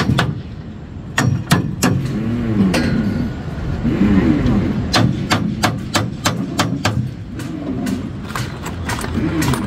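Hammer knocking on steel wall formwork and its tie fittings, a series of sharp metallic blows at an irregular pace, some in quick runs. A steady low rumble of site or street machinery runs underneath.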